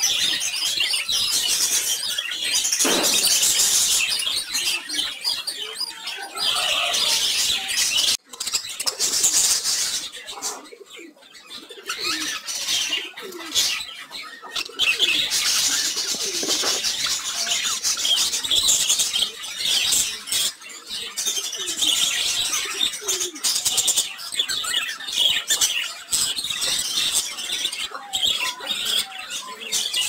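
Budgerigars chattering and warbling, a near-continuous stream of high chirps and twitters, with a brief break about eight seconds in and a quieter stretch around eleven seconds.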